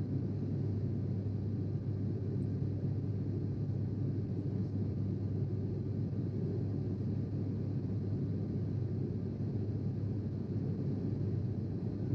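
Steady cabin noise of a Sukhoi Superjet 100 in flight: a low, even rumble from its SaM146 turbofan engines and the airflow over the fuselage, with a faint steady whine above it.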